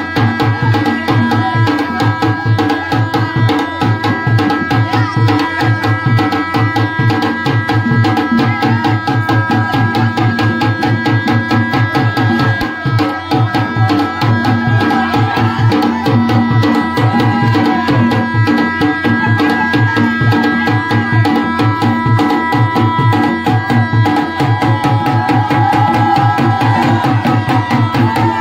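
Music with fast, steady hand-drum beats under sustained held tones, at an even loudness throughout.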